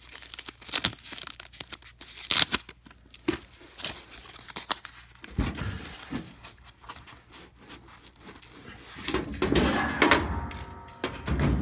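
Crinkling and rustling as padding and a thin strip are handled and pressed into a dryer door, with scattered clicks and knocks and a low thump about halfway through. It grows louder near the end, with a brief squeak.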